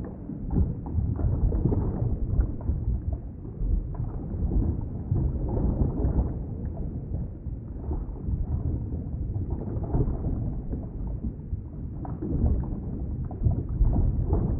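Underwater ambience: a muffled, continuous low rumble of moving water, swelling and easing irregularly, with all the higher sounds cut away.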